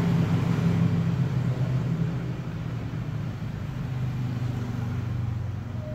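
A steady low mechanical hum, like a motor running, a little fainter after about two seconds.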